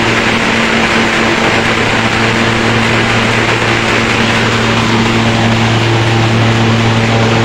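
Hazelnut thresher (patoz) running steadily while husking hazelnuts: a constant low hum with a dense rushing noise over it.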